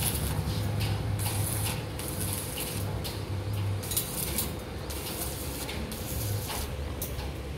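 Electric arc welding on stainless steel tubing: the arc hisses and crackles in short bursts, starting and stopping several times, over a steady low hum.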